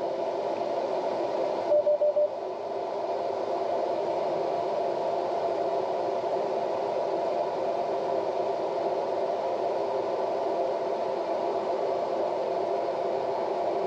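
Steady drone of a John Deere combine heard from inside its cab during wheat harvest, with a quick series of short beeps from the cab about two seconds in.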